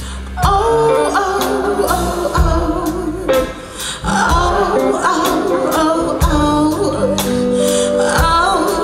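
Live rock band playing, with a woman singing the lead over electric guitars, bass guitar, drums and keyboards; the drum strikes come at a steady beat.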